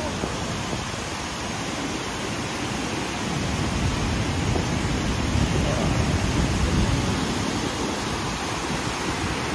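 Steady rushing roar of brown floodwater pouring over a weir and a submerged footpath, getting a little louder around the middle.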